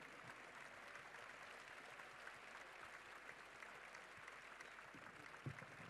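Faint, steady applause from a large crowd, with one soft low thump about five and a half seconds in.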